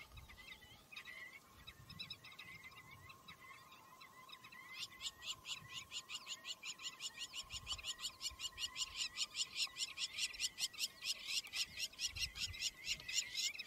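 African wild dogs twittering: a rapid series of high, bird-like chirps, about five a second, starting about five seconds in and growing louder, the excited social call of the pack.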